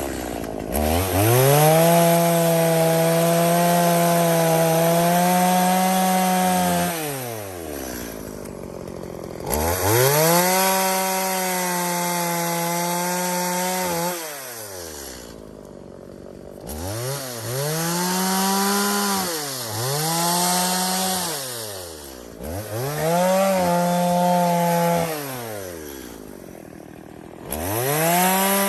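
Two-stroke chainsaw revving to full throttle and cutting branches off a log about six times. Each cut holds high for a few seconds, and the engine drops back between cuts.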